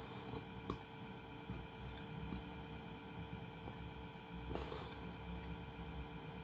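Steady low hum with a faint rumble, room tone of a small room. There is a soft click just under a second in and another about four and a half seconds in.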